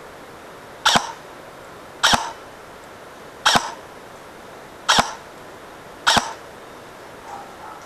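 Airsoft gun firing five single shots, evenly spaced at about one shot every second and a quarter, each a sharp crack with a short tail.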